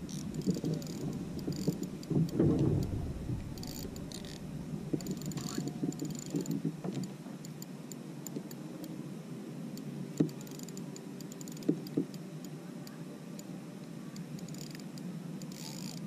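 Water slapping against a plastic fishing kayak's hull while a hooked fish is played on a spinning rod, with many small clicks and ticks from the reel and tackle. Wind rumbles on the microphone for the first several seconds, then dies away.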